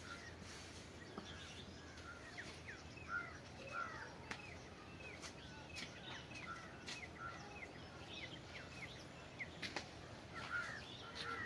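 Small birds chirping, many short quick chirps overlapping, with a few sharp clicks among them.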